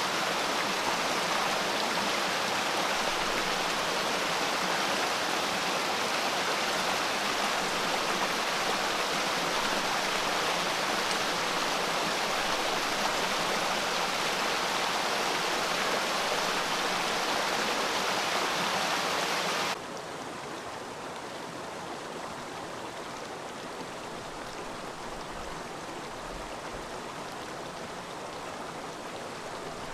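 Small mountain creek waterfall: water rushing steadily over rocks. About two-thirds of the way through it cuts abruptly to a quieter, softer flow of water.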